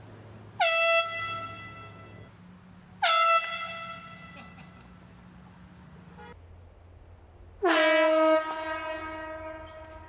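Handheld air horn blasted three times, each a loud, shrill note that tails off. The third blast is longer and carries a lower second note.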